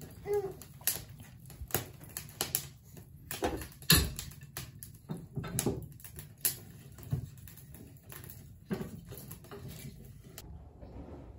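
Wood being loaded into a lit wood-burning stove: irregular knocks and clatter of logs and kindling against the firebox, the loudest about four seconds in.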